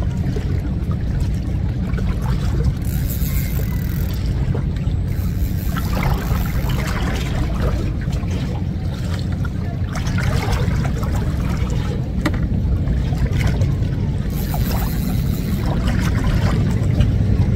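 Seawater lapping and splashing against breakwater rocks over a steady low rumble.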